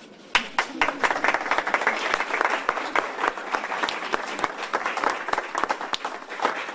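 A group of people applauding with hand claps, breaking out suddenly about half a second in and keeping up a steady clatter.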